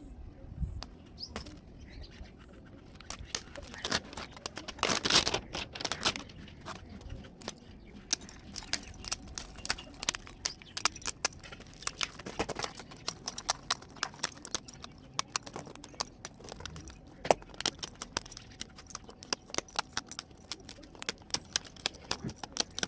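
Many small, irregular clicks and clatter of hard plastic and metal laptop parts being handled and pried apart, with a denser scraping rattle about five seconds in.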